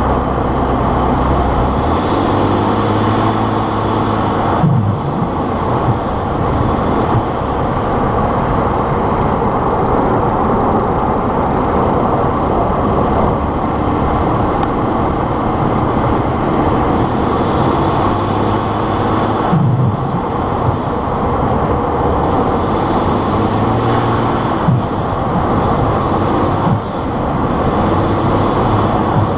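2011 Ford F-150's 3.5-litre EcoBoost twin-turbo V6 running under the hood, with a high turbo whine rising under acceleration several times. Each spell ends in a short, loud belching noise as the throttle comes off, which Ford put down to the turbo blow-off valve.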